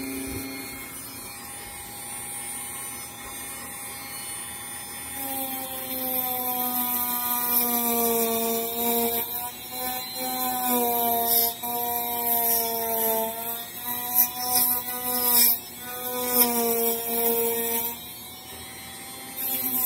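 Dremel rotary tool with a small bit carving foam insulation board: a steady motor whine whose pitch dips and recovers again and again as the bit bites into the foam. From about five seconds in, a scratchy rasping hiss of the foam being ground away joins it.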